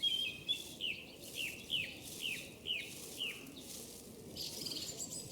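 A songbird in a countryside ambience track sings a run of short, falling chirps, about eight in three seconds. Near the end comes a fainter, higher buzzy call.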